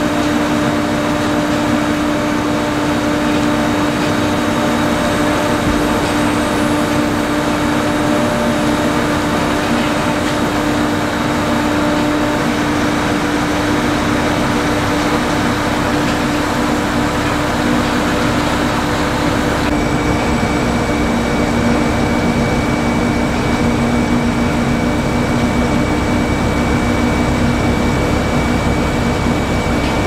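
Potato-harvesting machinery running steadily: a continuous engine and machine drone with several constant humming tones. About two-thirds of the way through, the sound shifts slightly and a thin, high steady whine joins in.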